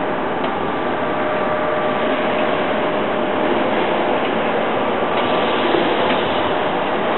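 Steady mechanical drone with a faint constant whine running through it.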